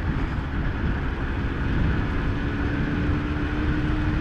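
Wind rush on a helmet-mounted microphone while riding a motorcycle, heavy in the low end, with the bike's engine note audible as a steady hum that comes through about a second and a half in and rises slightly. The microphone is covered with a latex glove to cut the wind noise.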